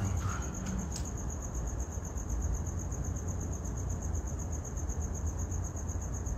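Crickets chirping in a steady, rapidly pulsing high-pitched trill, over a low rumble.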